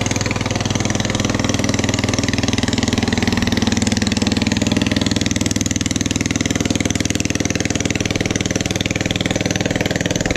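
Small boat engine running steadily: a low, even hum with a fast regular pulse.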